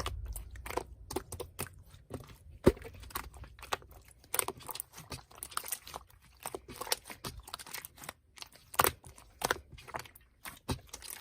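Slime being worked by hand, giving irregular sticky clicks and pops, with a sharp, louder pop almost three seconds in.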